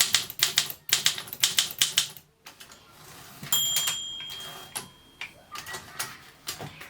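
Olympia SM2 manual typewriter being typed on: a quick run of key strikes, about five a second, for two seconds. Halfway through, the margin bell rings once and fades, then a few scattered clicks follow.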